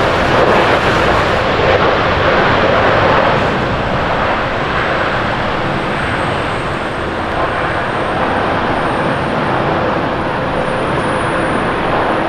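Japan Airlines Boeing 787-9 Dreamliner with GEnx turbofan engines roaring during its landing rollout, as the jet slows on the runway with its spoilers deployed. The roar is loudest in the first few seconds and then settles to a steady level, with a faint high whine slowly rising in pitch.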